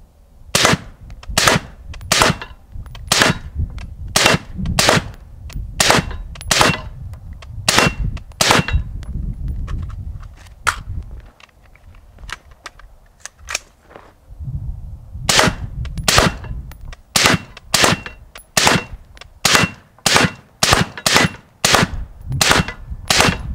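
Suppressed AR-15 rifle with a Dead Air Sandman short suppressor firing single shots at an AR550 steel target, about one a second. There is a lull of a few seconds near the middle, then a second string that quickens toward the end. Each shot is followed by a low rumbling echo, with hits ringing off the steel plate.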